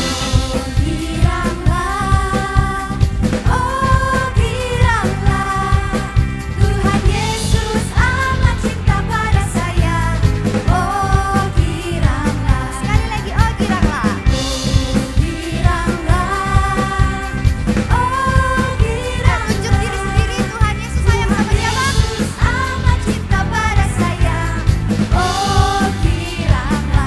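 Live worship band playing with singers: sung vocals over a drum kit keeping a steady beat, with bass, electric guitars and keyboard.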